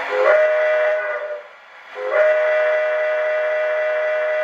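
Steam whistle from the Proto-Sound 2 sound system of an MTH Premier O-scale Erie Triplex model locomotive: two blasts, a short one, then after a brief pause a longer one. It is the forward signal given before the locomotive moves off.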